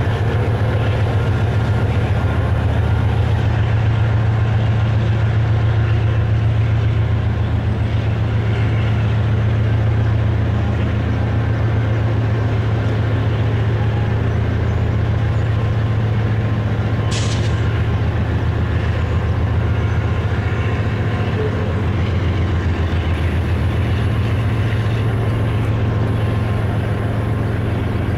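Diesel freight locomotives running with a loud, steady low drone, with a brief hiss a little past the middle.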